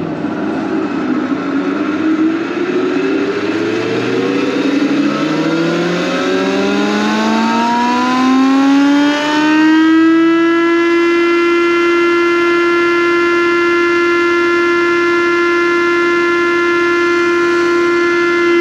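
Old thickness planer's motor and cutterhead switched on and running up to speed, its whine rising steadily in pitch for about ten seconds and then running at a steady pitch. This is a test run after the planer knives were changed, listening for the noise the machine had been making.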